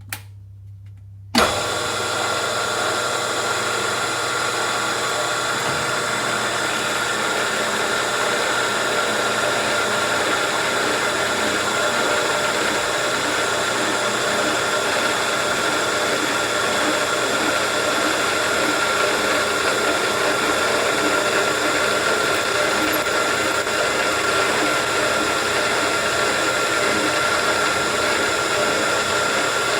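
A milling machine switches on about a second in and runs steadily with a high whine, drilling a new hole through a worn rocker arm.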